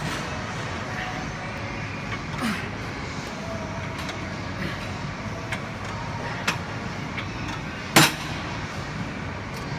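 Gym background noise: a steady hum with scattered light metal clinks and one loud, sharp clank of weights near the end.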